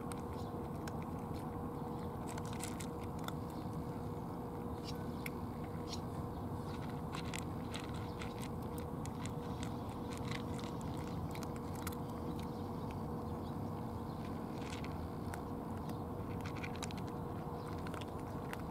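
Two cats crunching dry kibble: irregular crisp crunches and clicks over a steady low background hum.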